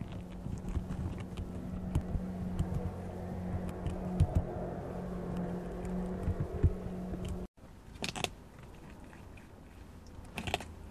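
Prairie dog gnawing and chewing at an ear of corn in its husk: irregular crunching and tearing clicks. A steady low hum runs under the first seven seconds or so and stops abruptly.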